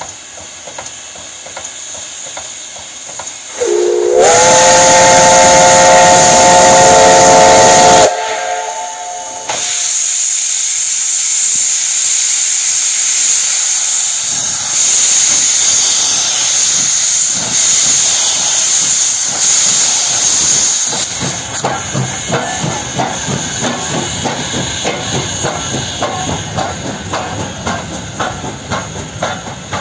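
Soviet L-class steam locomotive L-3108 sounds its whistle, a chord of several tones that slides up briefly as it opens and holds for about four seconds. Then loud steam hiss from the open cylinder drain cocks as it starts away, and from about two-thirds of the way in a rapid, regular exhaust beat under the hiss.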